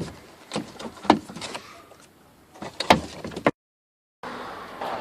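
Sharp plastic clicks and knocks, about five of them, as the 2012 Mazda 5's door trim panel is hung back on the door and its clips are pressed home. The sound cuts out for a moment about three and a half seconds in.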